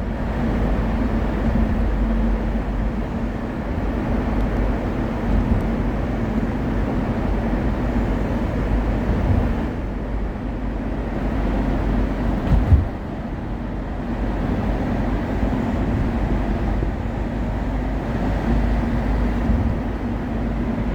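Road and traffic noise inside a car driving with its windows open through a road underpass: a steady rumble with a low hum. A short thump stands out a little past the middle.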